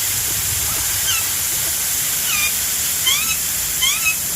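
Garden hose spraying water in a steady hiss, with short chirps from birds sweeping up and down in pitch over it, several of them in quick succession near the end.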